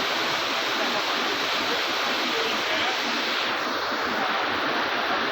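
Floodwater rushing, a steady full-spectrum noise of fast-flowing water swollen by heavy rain.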